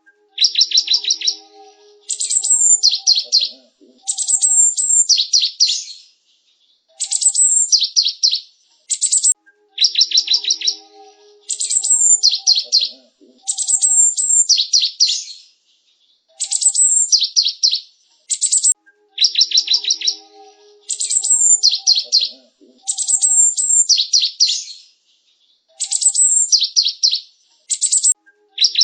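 Cinereous tit (gelatik batu) singing. It repeats the same phrase about every three seconds: a quick run of high, ringing notes followed by sharp downward-sweeping chips.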